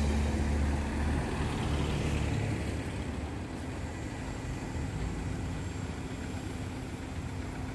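Street noise on a resort strip: a low, steady engine-like hum that fades away over the first few seconds, leaving a steady wash of background noise.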